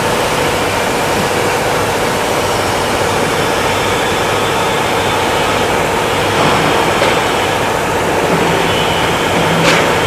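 A loud, steady rushing noise with a faint steady hum under it and a faint click near the end.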